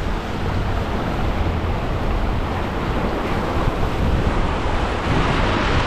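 Small waves breaking and washing up the beach, a steady rush of surf that swells near the end, with wind rumbling on the microphone.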